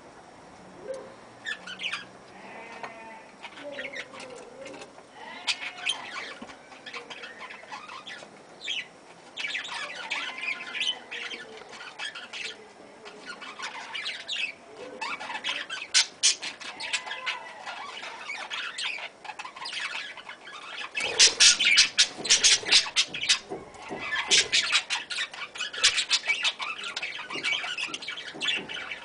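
A flock of budgerigars chattering, with chirps and scratchy squawks, getting busier and louder in the last third.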